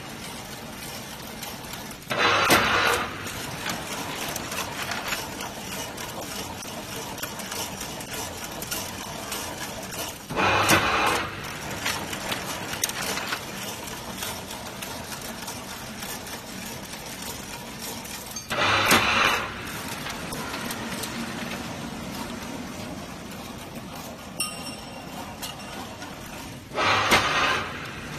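Chain link fence weaving machine running steadily, with a loud noisy burst of about a second from its weaving cycle four times, about every eight seconds.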